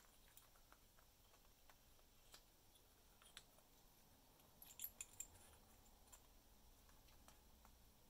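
Faint clicking and crunching of a parrot's beak chewing on a wooden toy held in its foot, with a quick run of sharper clicks about five seconds in.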